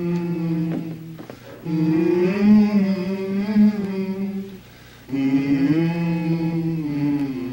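Male vocal quartet singing wordless held chords in close harmony, a cappella, in three long phrases with short breaks about a second in and about four and a half seconds in.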